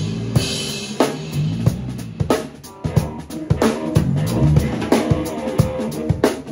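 Live funk band jamming: a drum kit plays a busy groove of kick and snare strokes under a moving electric bass line, with other pitched instruments above. The band thins out briefly about two and a half seconds in.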